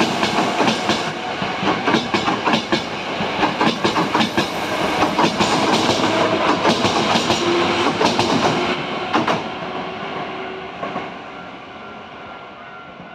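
Hankyu 8000 series electric train running out along the platform, its wheels clattering over rail joints in rapid clicks. The sound fades steadily over the last few seconds as the train pulls away.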